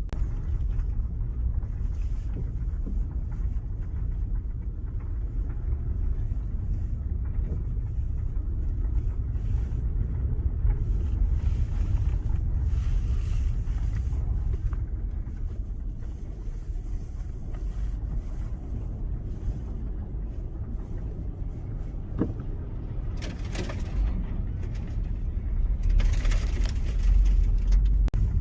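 Steady low rumble of a car driving, heard from inside the cabin, with two short hissing swells near the end.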